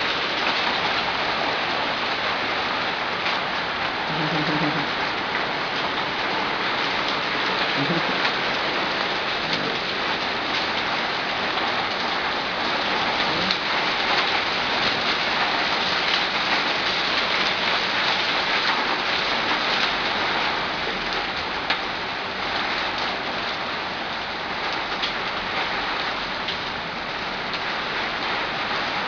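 Hailstorm: small hailstones and rain pelting the ground and surfaces, a dense steady hiss packed with tiny clicking impacts.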